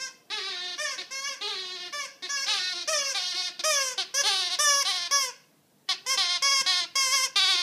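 A rapid string of short, high-pitched squeaks with a quivering, bleat-like tone, several a second, stopping once briefly a little past the middle.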